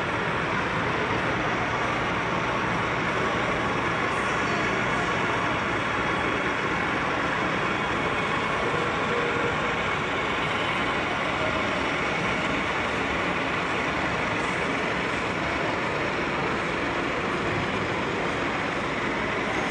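Steady din of a busy model train show hall, with model trains running on the operating layouts under the general hall noise.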